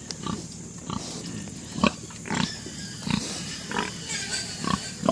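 Farm animals making short, separate grunting calls, about seven of them at irregular intervals.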